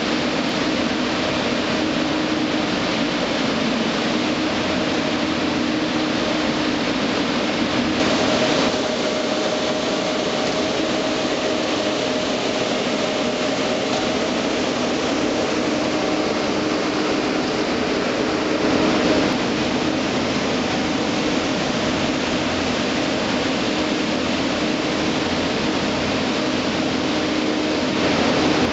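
Concrete truck mixer and concrete pump running, a steady mechanical drone with a constant hum, as the mixer discharges concrete into the pump's hopper.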